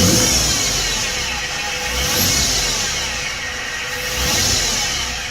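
2011 Ford F-150's 3.7-litre V6 revved three times, with a whine from the engine bay that rises and falls in pitch with each rev, like a turbo or supercharger. The owner rules out the alternator as the source.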